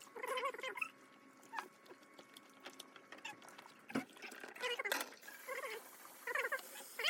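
Tomcat yowling in protest while being bathed in a sink: one drawn-out cry at the start, then a string of short wailing meows in the second half.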